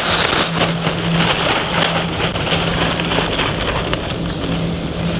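Muddy stream water splashing and sloshing as hands grope along the submerged undercut bank for catfish, with a continuous crackly patter. A steady low hum runs underneath.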